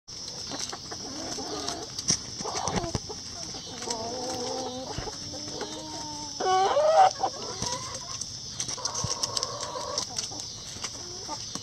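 A flock of backyard chickens clucking and giving drawn-out calls, with one louder call rising in pitch about halfway through, over a steady high hiss.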